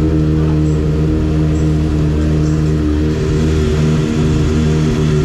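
An engine running steadily at an unchanging speed, giving an even, low-pitched drone.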